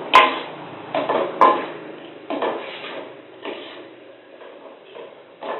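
Metal spatula scraping and clanking against a metal wok while stir-frying rice, in irregular strokes about a second apart.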